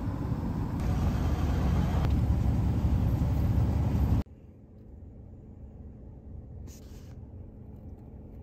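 Steady low rumble of road traffic, which cuts off sharply about four seconds in, leaving a much quieter low hum.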